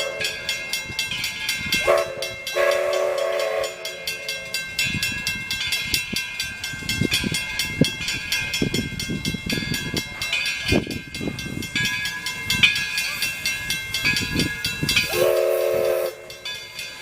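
Steam locomotive Edison, a 4-4-0 American type, sounding its chime whistle: a longer blast about two seconds in and a short toot near the end. Between the blasts comes the chuffing of its exhaust as it runs.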